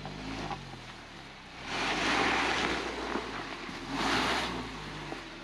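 Suzuki Jimny engine running under load on a loose, rocky climb, with two loud bursts of rushing noise, the first about a second and a half long, the second shorter, near the middle.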